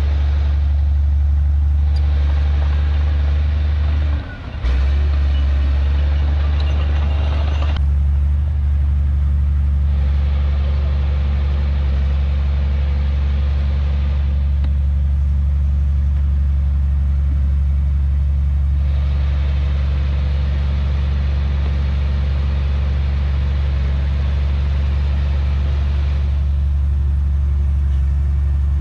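Heavy diesel earthmoving machine engine running steadily with a deep hum, with stretches of louder mechanical working noise over it. The level dips briefly about four seconds in.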